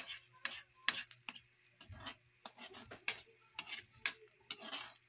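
Metal spatula clacking and scraping against a wok in irregular strokes while ginger and garlic are stir-fried in oil, with a light sizzle underneath.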